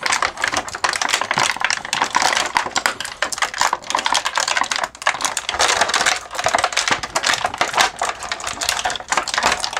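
Thin clear plastic bag crinkling and crackling as it is handled and pulled off small plastic action-figure hands: a dense run of sharp crackles with a brief pause about halfway through.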